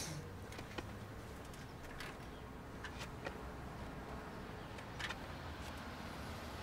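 A low, steady rumble with scattered light clicks and knocks at irregular intervals.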